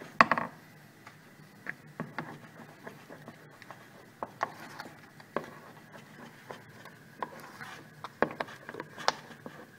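A wooden spoon stirs thick, sticky sweet-rice-flour porridge in a stainless steel saucepan, scraping and knocking irregularly against the pan. The loudest knock comes right at the start, with a few sharper ones near the end.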